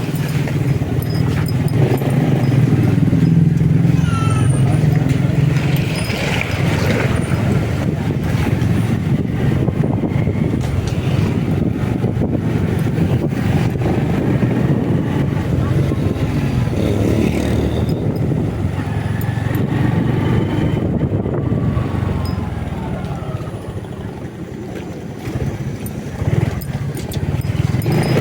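Motorcycle engine running at road speed, with road and traffic noise from the ride.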